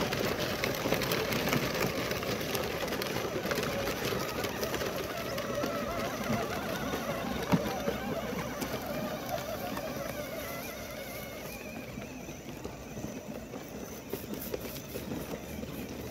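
Plastic wheels of a child's pedal tractor and its train of toy trailers rattling over gravel and grass, fading as the tractor moves away.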